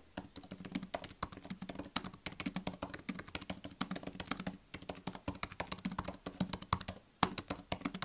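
Typing on an M1 MacBook Air's scissor-switch keyboard: a quick run of soft key clicks, very quiet, breaking off briefly about halfway through and again near the end.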